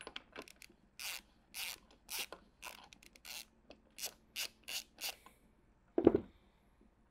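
Hand ratchet turning a 7/8-inch six-point socket to back out the governor housing plug on a Bosch P7100 injection pump. Each back-swing gives a quick rasping click run, about two to three a second for some four seconds, and a single louder sound comes near the end.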